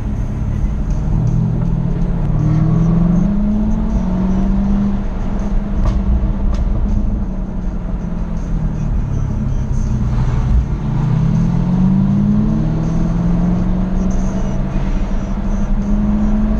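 Jaguar F-Type SVR's supercharged V8 under hard driving, its revs climbing and easing off about three times over a constant low rumble of engine and road noise.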